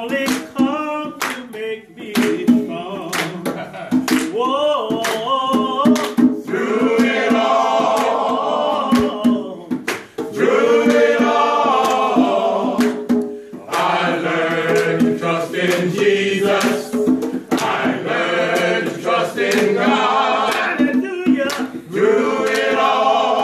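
A small men's group singing a gospel song in harmony, with hand-clapping.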